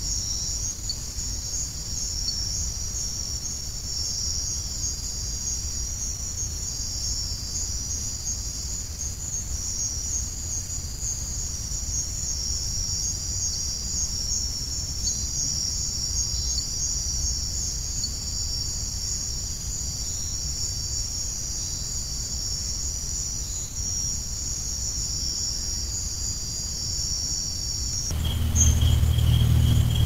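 Night insect chorus: several steady high trills overlapping without a break, over a low rumble. Near the end it cuts off sharply, and a louder low rumble and a single steady high tone take over.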